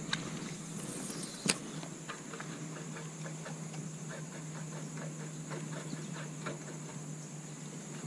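Spinning reel being worked after a cast: one sharp click about a second and a half in, then a run of light, uneven ticking as the line is reeled in, over a steady high buzz.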